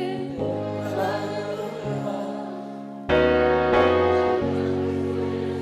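Gospel worship music: sustained keyboard chords with singing over them, louder from about three seconds in.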